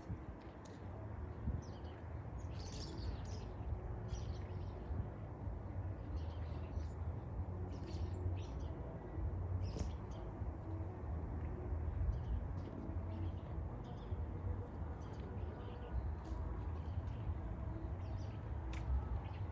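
Small birds chirping in short, scattered calls, over a steady low rumble.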